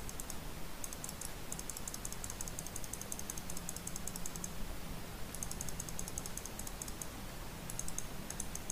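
Computer keyboard typing: several runs of rapid light key clicks with short pauses between them, over a faint steady hum.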